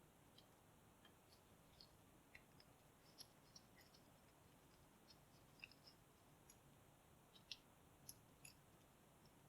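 Faint, scattered small clicks and taps from handling a Segal lock and its parts during disassembly, with one sharper click about seven and a half seconds in.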